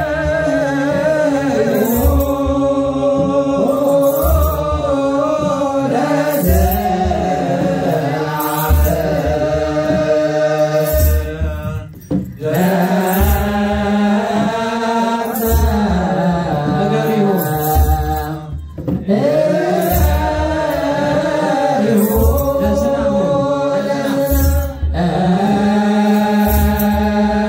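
Voices of an Eritrean church choir chanting a hymn together in long, sliding notes over a slow, steady drum beat, with a short rattle about every second and a half. The chant breaks off briefly a few times and starts again.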